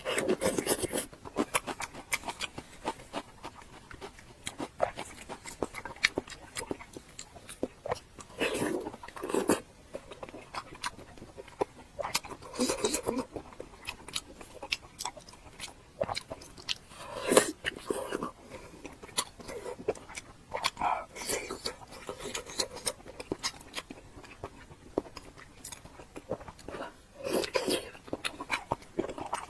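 Close-up eating sounds: chewing and biting with wet mouth clicks, coming in louder bursts every few seconds.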